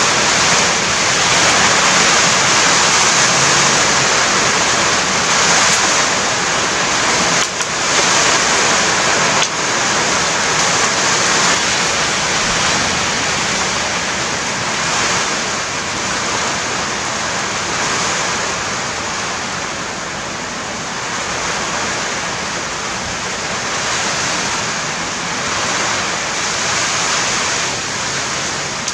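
Heavy rain from a storm, a steady loud hiss that eases a little past the middle.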